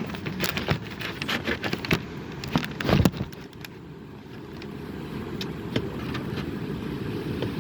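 Strong wind buffeting the microphone: a steady low rumble, with a run of crackles and knocks over the first three seconds or so.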